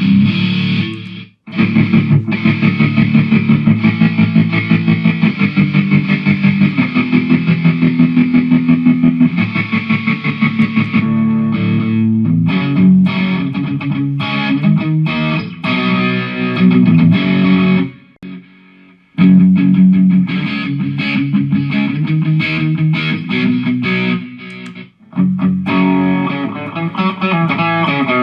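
Distorted electric guitar, a Jackson played through a Mooer GE150 multi-effects unit, playing riffs with fast, evenly picked notes. The playing breaks off briefly a few times.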